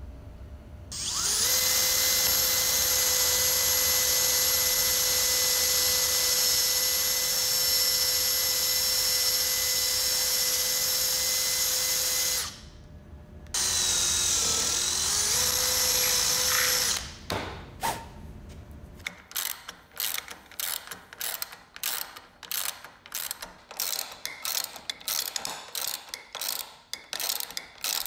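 Cordless brushless drill running steadily for about eleven seconds while boring into a 2x4, then a shorter second run in which the pitch dips as the bit bites into the wood. From about 19 s on, a socket ratchet wrench clicks in quick strokes as a caster's mounting bolts are driven into the leg.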